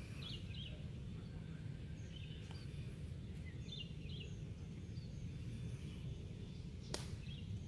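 Open-air background with a steady low rumble, short high bird chirps a few times, and a single sharp click near the end.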